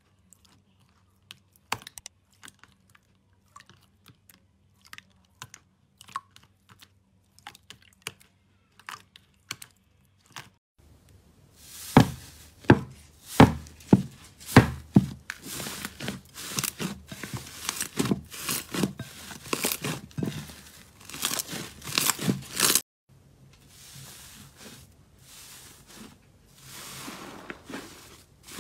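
Hands squishing slime: sparse, quiet sticky clicks for the first ten seconds, then a run of loud sharp pops as fingertips press into a thicker slime, thick crackling, and after a short break, softer crackling as a fluffy slime is stretched and pulled apart.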